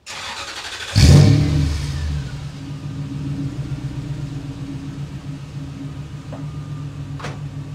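Toyota 4.7-litre V8 in a 2002 Tundra on its first start through a new MBRP 3-inch resonator-back exhaust, heard at the tailpipe: it turns over for about a second, catches with a loud flare of revs that falls away, then settles into a steady idle. A single sharp click near the end.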